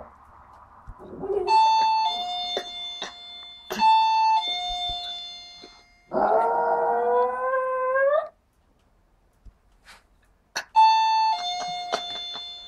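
An electronic doorbell chimes its two-note ding-dong, high then low, several times. Between the chimes a West Highland white terrier gives one long howl, rising slowly in pitch, about six seconds in.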